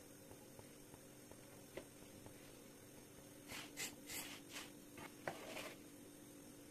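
Wooden spatula scraping and rubbing against a puffed flatbread and the pan as it is pushed round and turned: several short scrapes in the second half, over a faint steady hum.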